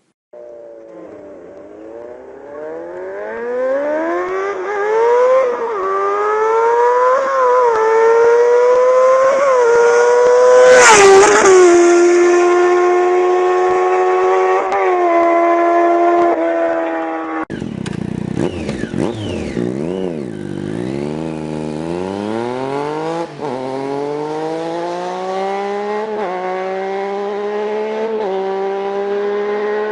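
Motorcycle engine accelerating hard through the gears, its pitch climbing and dropping back at each upshift, loudest about eleven seconds in. About halfway through it cuts suddenly to another motorcycle engine revving up, its pitch rising steadily with one more shift.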